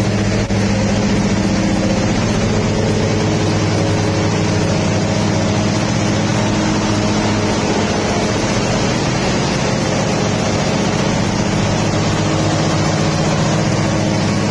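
Car engine idling, a steady low drone that holds even throughout.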